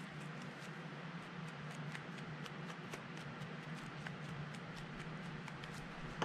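Fluffy shaving-cream slime being squished and worked in the hand with a felt-tip marker: faint soft crackling and clicking over a low steady hum. A sharp knock right at the end.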